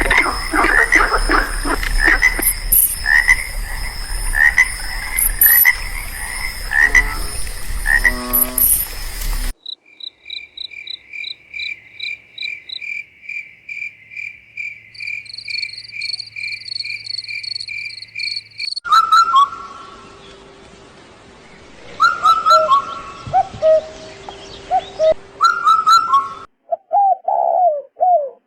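Frogs croaking in a dense chorus, cutting off abruptly about nine seconds in. A high, evenly pulsed call follows for about nine seconds, then a different set of short repeated calls, and a brief lower call near the end.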